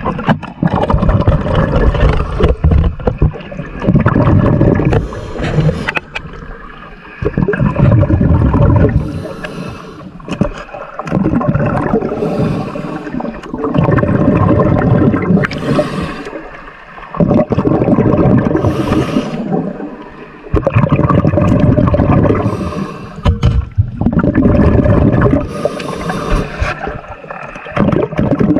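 A diver breathing through a scuba regulator underwater: a short hiss on each inhale, then a loud gush of exhaled bubbles, repeating about every three seconds.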